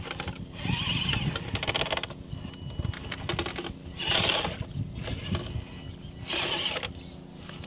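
Gmade Komodo RC crawler's electric motor and geared drivetrain whirring in three short bursts of throttle as it drives through a shallow muddy stream, with water splashing.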